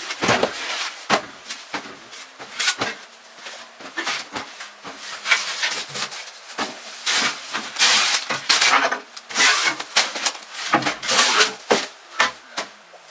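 Clothes and storage boxes being pulled off wardrobe shelves: repeated rustling and swishing of fabric, with knocks and scrapes against the shelves, at an irregular pace.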